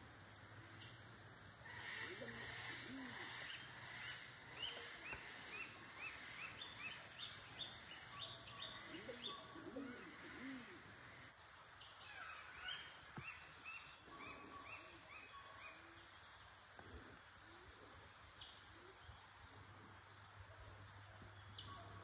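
Tropical rainforest ambience: a steady high-pitched insect drone, with birds calling over it, including runs of short rising chirps repeated a couple of times a second.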